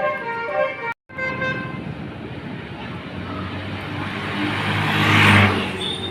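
Multi-tone Basuri telolet bus horn playing its tune, cut off abruptly about a second in with a few fading notes after. A bus engine and road noise then build up, loudest near the end, as the vehicle passes close.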